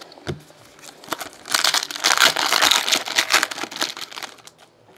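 Foil wrapper of a football trading-card pack being torn open and crinkled by hand. There is a light knock just after the start, then a dense run of crinkling and tearing for about two seconds that trails off near the end.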